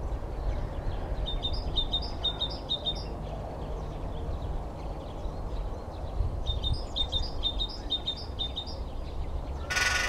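Great spotted woodpecker drumming on a power-line pole: one very fast roll of just under a second near the end, with a ringing tone to it. Before it, another bird sings two series of high, quick repeated notes over a steady low rumble.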